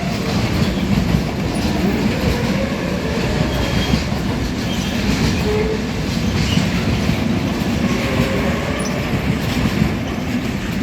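Container freight train's wagons rolling past, wheels clattering steadily over the track, with a few short, faint wheel squeals.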